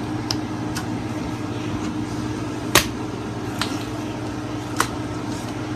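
A steady low hum with a few short, sharp clicks scattered through it, the loudest about three seconds in.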